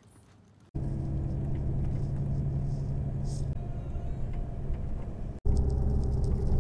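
Coach bus running on the highway, heard from inside the passenger cabin: a steady low engine drone and road rumble with a hum. It starts abruptly about a second in, after near silence, and breaks off for a moment near the end.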